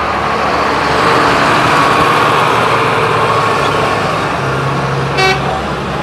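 Heavy diesel dump truck engine running close by, with a short horn toot about five seconds in.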